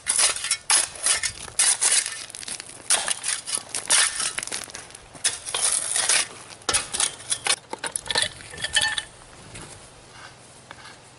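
Steel shovel digging into rocky, gravelly soil, its blade scraping and clinking against stones in many quick strokes. It stops about nine seconds in.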